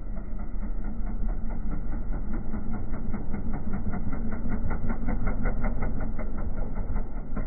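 A motor running steadily with a rapid, even beat.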